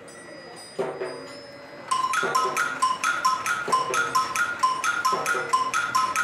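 Mechanical percussion installation striking steadily: two single ringing strikes, then from about two seconds in a fast, even run of sharp strikes on two alternating pitches, about four or five a second.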